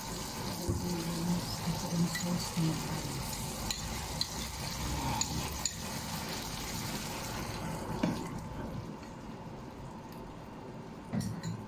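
Diced pork and bell peppers frying in a nonstick pan: a steady sizzle with a few light clicks. The sizzle turns quieter about two-thirds of the way through.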